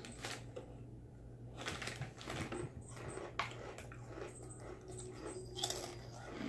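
Crinkling of a foil snack bag of Crujitos as a hand rummages in it for chips, then crunching as a chip is bitten and chewed near the end.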